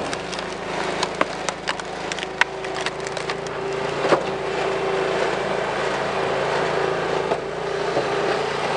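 Homemade firewood splitter's motor running steadily while a large log is forced onto the splitting wedge, the wood cracking and splintering in a run of sharp snaps over the first four seconds, the loudest crack about four seconds in.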